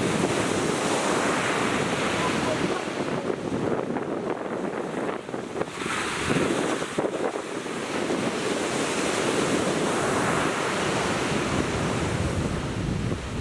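Ocean surf washing and breaking on a beach, swelling and easing every few seconds, with wind buffeting the microphone.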